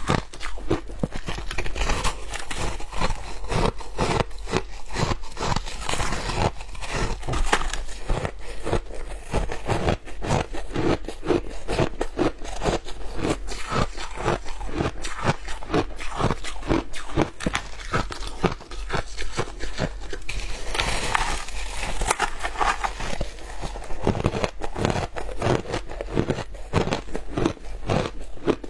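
Shaved ice crunching and crackling in rapid, continuous strokes as it is bitten, chewed and grabbed by hand from the tub. There is a grainier scraping stretch a little past two-thirds of the way through.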